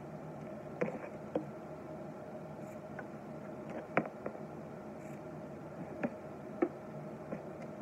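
Scissors snipping the corners off a sewn fabric face mask: about half a dozen short, sharp snips at irregular intervals, over a steady background hum.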